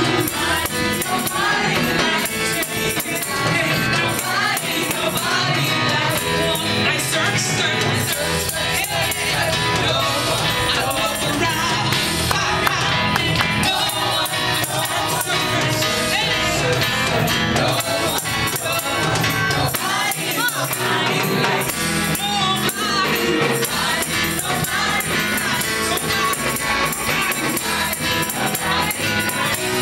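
Live gospel praise-and-worship music: several women singing together through microphones over keyboard and drums, with a steady rhythm and the congregation clapping along.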